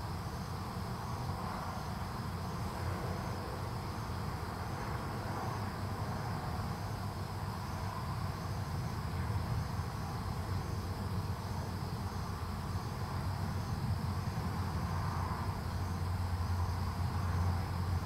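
Steady low background rumble, getting slightly louder towards the end, with a faint high chirping that repeats at an even pace.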